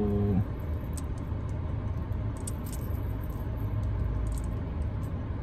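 Steady low rumble of a car idling, heard from inside the cabin, with a few faint light clicks as a jointed plastic swimbait lure and its treble hooks are handled. A brief hummed voice tone sounds at the very start.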